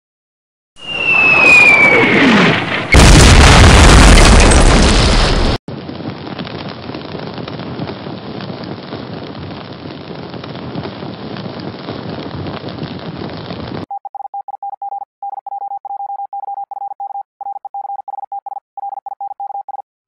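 Air-raid sound effects: a falling-bomb whistle sliding down in pitch, then a loud explosion and several seconds of steady rushing noise. Then a steady high computer beep that keeps cutting in and out, a glitch of the editing computer left in the soundtrack.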